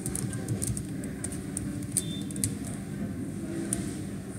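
Computer keyboard keystrokes and mouse clicks, light sharp clicks at an irregular pace that are thickest in the first two and a half seconds and sparser after, over a low steady background hum.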